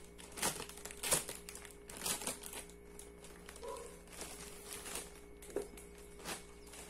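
Clear plastic bag crinkling as it is handled and opened by hand, in short, irregular crackles.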